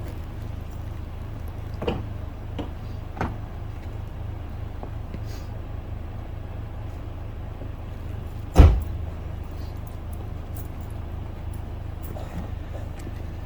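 A vehicle door shut with one heavy thump about two-thirds of the way through, with a few lighter clicks and knocks earlier, over a steady low vehicle hum.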